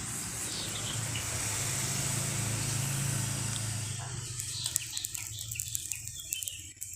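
Brick-making machine running with a steady hiss over a low hum, which dies away about four seconds in, leaving scattered light clicks and faint bird chirps.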